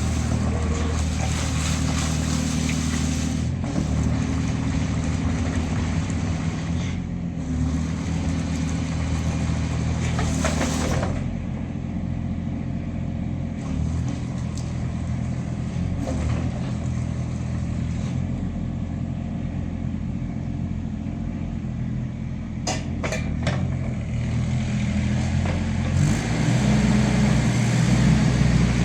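Wacker Neuson EZ28 mini excavator's diesel engine running, its note shifting several times and growing louder near the end, with a few sharp clicks about two-thirds of the way through.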